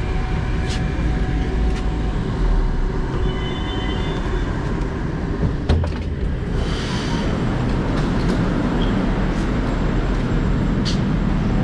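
Moscow metro 81-765/766/767 "Moskva" train at a station platform: a steady low rumble, with a sharp click just before six seconds in and a short hiss about a second later.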